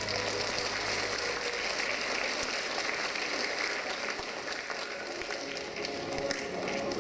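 Audience applauding: many hands clapping in a steady patter, while the performance music fades out in the first second or so.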